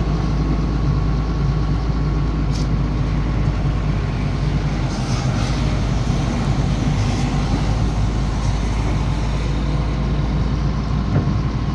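Heavy diesel engine running steadily at an even speed, with no revving.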